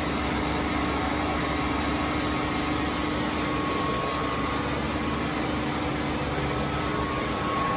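Centerless grinding machine running, a steady hum under an even whir of machine noise.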